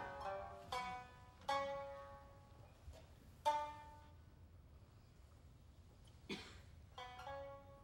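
Shamisen accompaniment for Japanese classical dance: separate plucked notes, each ringing and dying away, with gaps between them, the loudest about halfway through. A short noisy sound cuts in a little after six seconds.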